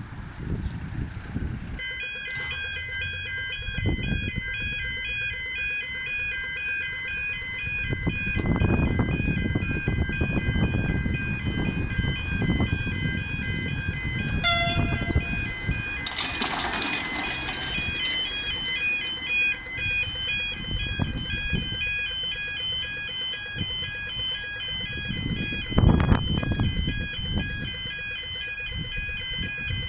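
Railway level crossing warning bells ringing: an electronic alternating two-tone chime that starts about two seconds in and repeats at a steady pace. A short rushing noise comes in the middle and a thump near the end.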